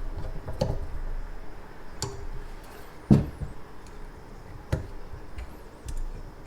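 Scattered clicks and knocks of faucet parts and tools being handled at a sink, with the loudest knock about three seconds in and another sharp one near five seconds.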